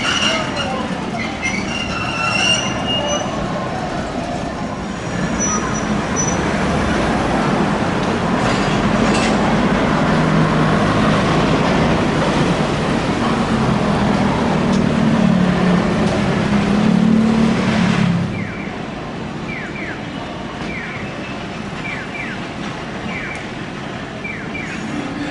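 Okayama Electric Railway streetcar running past: brief high wheel squeals near the start, then wheel rumble and a low motor hum that grow louder and drop off suddenly about two-thirds of the way through. After that come pairs of short clicks, about one pair a second.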